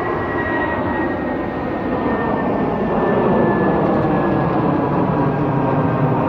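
Jet airliner's engines at takeoff power: a steady roar growing louder, with a high fan whine slowly dropping in pitch.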